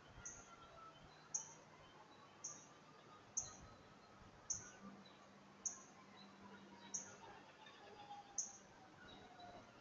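A small bird repeating a short, high chirp about once a second, faint against the quiet of the yard.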